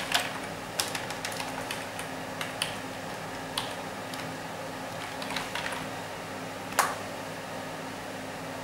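Computer keyboard typing: irregular key clicks, the loudest about seven seconds in, over a steady low hum.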